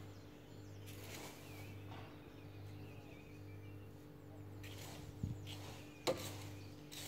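Garden rake scraping through dead leaves and soil in a few separate strokes, with two sharp knocks about five and six seconds in, over a steady low hum. Faint bird chirps.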